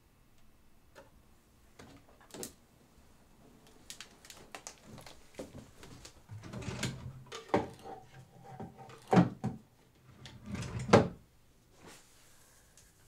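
Rummaging at a wooden bedside table: a drawer sliding and knocking, with small objects clattering and being handled. The knocks come thicker and louder in the second half, the sharpest ones a second or two apart.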